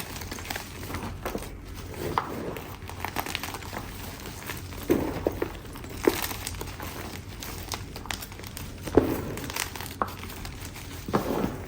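Chalk being crushed and crumbling into powder: a run of irregular crunches, with louder ones about halfway, and the loudest a little past three quarters of the way through.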